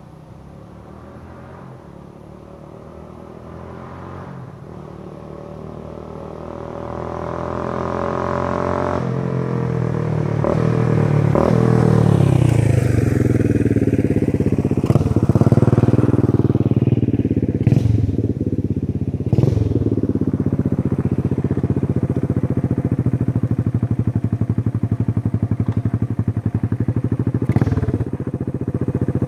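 1978 Kawasaki KZ200's single-cylinder four-stroke engine, breathing through a short 12-inch Emgo muffler with fresh packing. The bike approaches from a distance, growing steadily louder as the engine note shifts, then settles to a steady, loud idle close by for the second half. A few sharp clicks sound over it.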